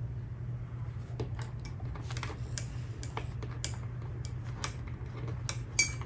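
Scattered light clicks and taps of brush-painting tools and small ceramic pieces being handled on a work table, over a steady low hum.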